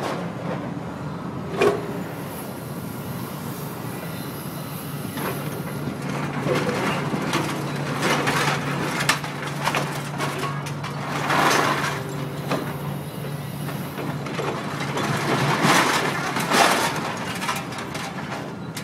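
Cat 345B excavator's diesel engine running steadily under hydraulic work, with scrap clanking and clattering as the grapple loads it into a steel melt pot. There is a sharp knock early on, then louder bursts of clatter about two thirds of the way through and again near the end.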